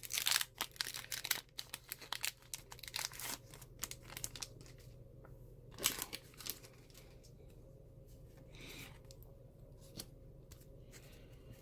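Plastic blister packaging and the foil wrapper of a Pokémon trading-card booster pack being crinkled and torn open by hand. The crackling is dense for the first few seconds, then turns into scattered crinkles with one sharp crackle about six seconds in, and fades to faint handling.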